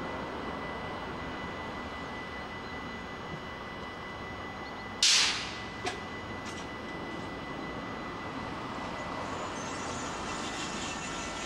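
NS SGMm Sprinter electric train standing at the platform with a steady running hum, broken about five seconds in by one sharp, loud hiss of compressed air and a click just after. Near the end, faint steady whining tones come in as the train begins to move off.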